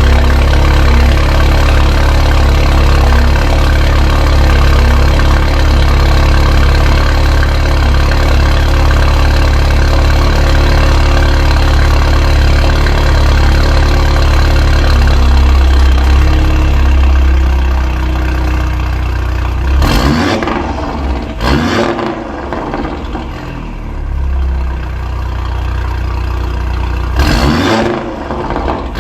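A modified car's engine idling loudly and steadily, dropping to a quieter idle after about seventeen seconds, then blipped in three short revs near the end.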